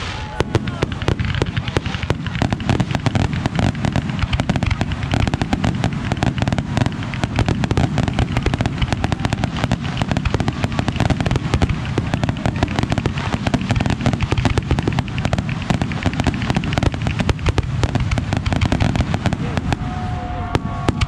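Aerial fireworks going off in a dense, unbroken barrage, many bangs and crackles a second.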